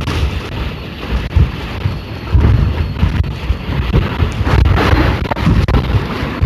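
Storm-force wind buffeting the microphone in uneven gusts, over the noise of heavy North Atlantic surf against the cliffs.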